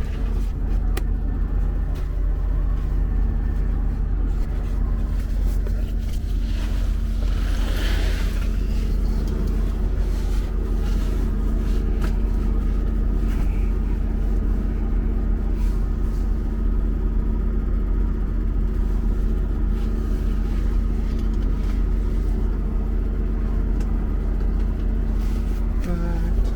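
Diesel truck engine idling steadily, with a short burst of hiss-like noise about eight seconds in.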